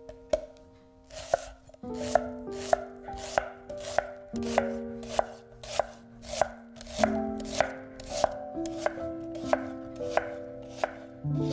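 Chef's knife slicing a red onion on a wooden cutting board: a run of crisp knife strikes, sparse at first, then about two or three a second from roughly two seconds in, over background music.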